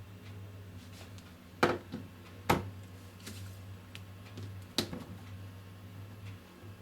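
A few sharp clicks and knocks, two close together about a second and a half in, a louder one about two and a half seconds in and another near five seconds, over a low steady hum.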